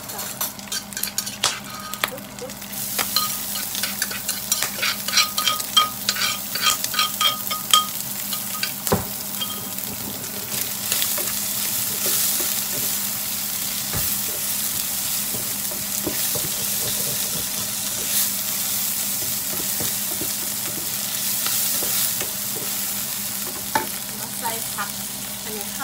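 Diced bacon sizzling in a frying pan as a slotted spatula stirs it, with repeated scraping and tapping on the pan for the first several seconds. From about ten seconds in, once chopped chilies are in the pan, the sizzle becomes louder and steady.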